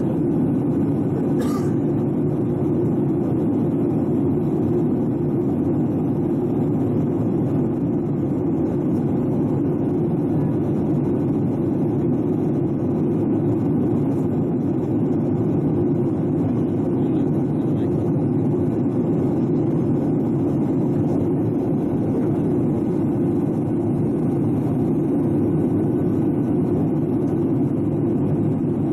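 Steady cabin noise inside a Boeing 737-800 during descent: the CFM56-7B engines and airflow make a constant low rumble, heard through the cabin wall. A brief click sounds about a second and a half in.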